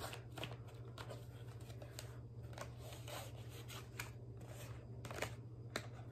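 A ribbon being pulled off a small cardboard gift box and the box handled: scattered soft rustles and light taps of card, over a steady low hum.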